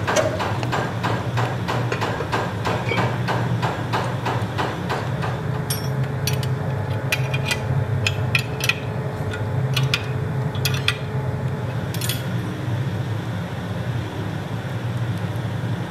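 Pillar drill running with a steady low hum. A rapid, regular metallic knocking, about three or four a second, runs through the first five seconds. After that come scattered sharp metal clinks as the steel flange and chips are handled at the drill.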